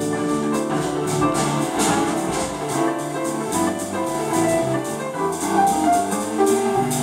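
Small jazz group playing live: grand piano, archtop guitar and electric bass, with drum-kit cymbals keeping time.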